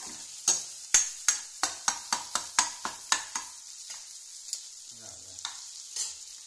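Chicken frying in a pan with a steady sizzle, while a spoon knocks and scrapes against the pan as it is stirred: a quick run of about eleven strokes, then a few more spaced out near the end.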